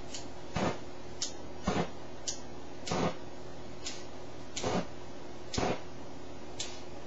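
Aerosol spray fired in short puffs through a butane torch lighter's flame: about six brief whooshes of fire, roughly one a second, with thinner, higher ticks between them.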